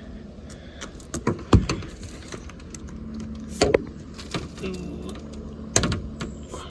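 A few sharp knocks and clicks, a second or two apart, from hands working plumbing tubing, fittings and pipe insulation.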